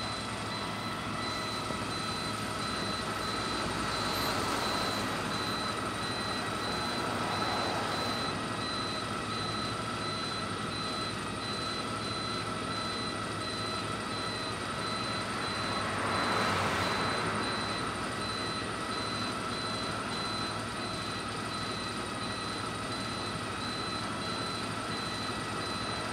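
Interior noise of a PAZ 320414-14 city bus on the move: steady engine drone and road noise, swelling a little a few times as it pulls away or speeds up.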